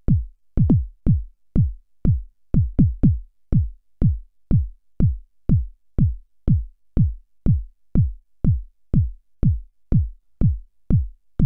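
Moog Rogue synth bass drum made from its self-oscillating filter, triggered by gate pulses from a Korg SQ-1 step sequencer. It plays a steady kick pattern of about two hits a second, with a few quicker double hits. Each hit is a short thump whose pitch drops quickly.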